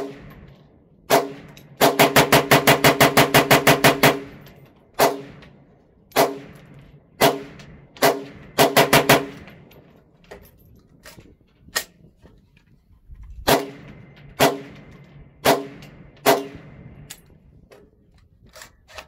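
Gunfire from a PSA KS-47 10.5-inch rifle in 7.62x39 shooting Tula full-metal-jacket ammunition. It fires two single shots, then a rapid string of about a dozen shots in a little over two seconds, then slower single shots with a quick group of four near the middle.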